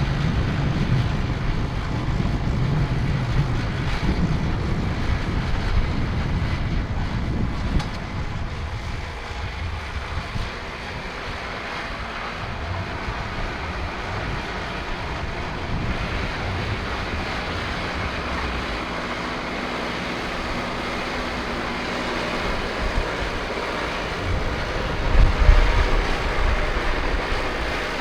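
Farm tractor engine working as it pulls a plough through sod, with wind buffeting the microphone. It is louder for the first several seconds, then quieter, with a short loud gust of wind noise near the end.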